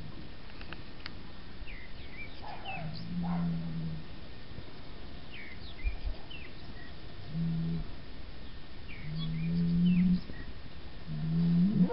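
Low animal calls of steady pitch, four of them, each about half a second to a second long, the last rising at its end, over scattered short chirps of small birds.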